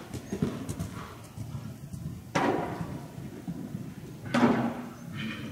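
Horse cantering on soft arena footing: dull, uneven hoofbeats, with two louder thuds about two and a half and four and a half seconds in.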